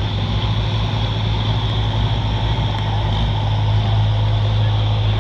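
A large pulling tractor's engine running steadily at an even, low pitch.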